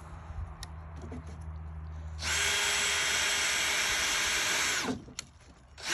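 Power drill running steadily for about two and a half seconds, then winding down. It starts up again right at the end.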